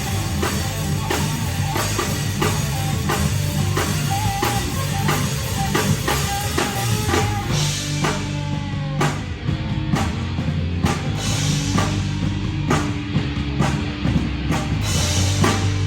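Live rock band playing with no vocals: a drum kit keeps a steady beat under guitar. About eight seconds in, the drumming opens up into sparser hits with cymbal crashes.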